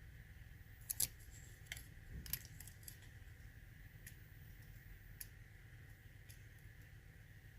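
Faint small metal clicks of lock-picking tools working the pins of a challenge lock, a cluster of several in the first couple of seconds, then single clicks every second or so, over a low steady hum.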